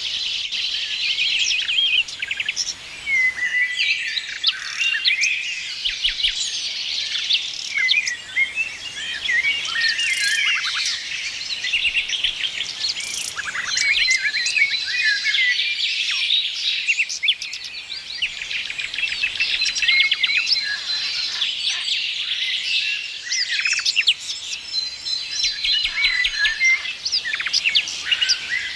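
A chorus of several small songbirds singing and chirping at once, with fast trills and short whistled notes overlapping, and now and then a thin whistle held for a second or two.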